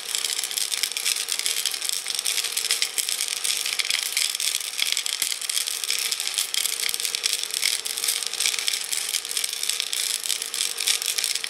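Homemade jewellery tumbler: a Ryobi cordless drill running at a steady speed, spinning a glass jar of steel bolts, rock and water, which rattle and clatter continuously inside the glass. A steady hum runs underneath.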